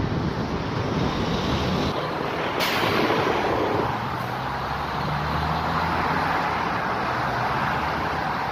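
Road traffic passing on the street alongside, cars and heavy trucks, with wind rushing over the microphone as the unicycle moves. A sharp hiss breaks in about two and a half seconds in and fades over a second, and a low engine drone swells in the middle.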